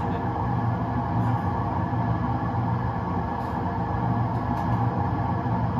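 Train driving simulator's running sound: a steady electric-train rumble and rail noise of running at speed, about 90 km/h, played through the cab's speakers.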